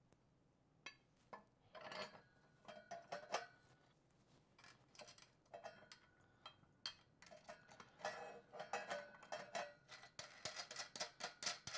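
Eyepiece tray being fitted onto a telescope tripod's centre rod: scattered clinks and knocks as it is set in place, a few of them briefly ringing, then a quick run of clicks near the end as the threaded knob under it is turned.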